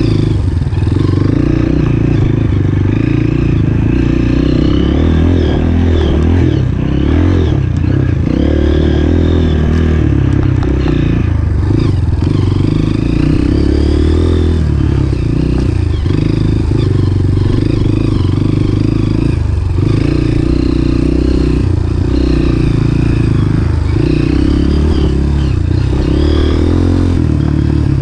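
Dirt bike engine running hard along a wooded trail, close to the handlebars, its pitch rising and falling again and again as the throttle opens and closes.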